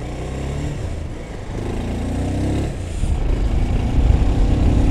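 Motorcycle engine running while riding, its pitch rising as it speeds up about two seconds in. From about three seconds in, a heavy low rumble grows louder under it.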